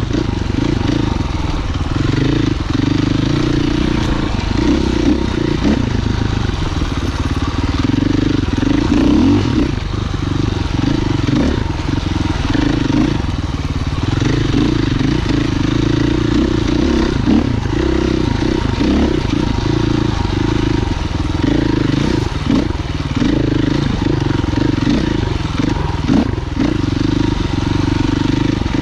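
Husqvarna FE 501 enduro motorcycle's single-cylinder four-stroke engine running while riding trail, its pitch rising and falling as the throttle opens and closes.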